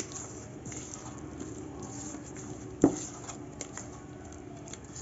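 Hand mixing a thick, wet spice marinade in a stainless steel bowl: soft squelching and light clicks, with one sharp knock a little under three seconds in.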